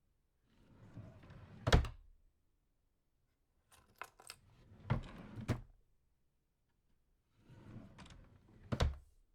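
A small drawer slid open and shut three times. Each slide scrapes for about a second and ends in a sharp knock as the drawer hits its stop, with light clicks in between.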